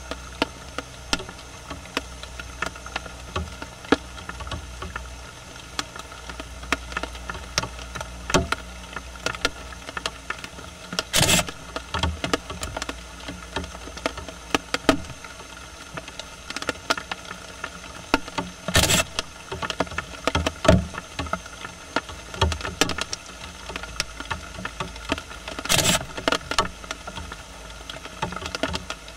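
Japanese raccoon dog foraging with its nose in dry leaf litter: irregular rustling and crunching clicks, with three short, louder rustles about seven seconds apart.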